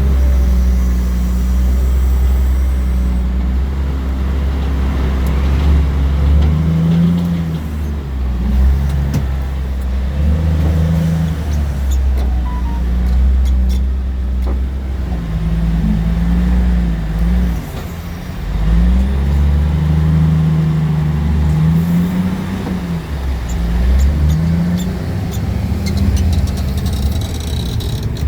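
Dump truck's heavy diesel engine running under load, its pitch climbing and dropping again and again.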